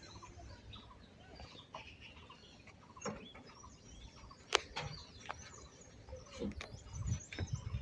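Faint bird chirps and clucking over quiet outdoor ambience, with a few sharp clicks, the loudest about four and a half seconds in, and soft low knocks toward the end.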